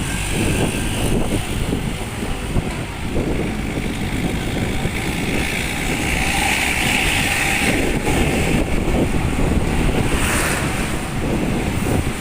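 Hino RK bus's diesel engine running steadily through a loud exhaust, mixed with wind buffeting the microphone.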